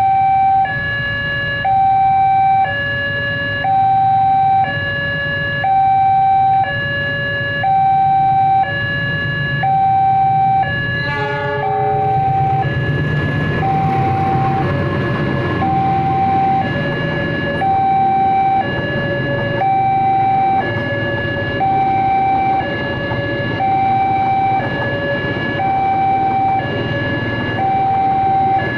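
Electronic warning siren of a railway level crossing, sounding a steady two-tone alarm that alternates between a high and a low tone about once a second. About eleven seconds in a short falling sweep cuts across it, and after that a broad rumbling noise builds up beneath the alarm.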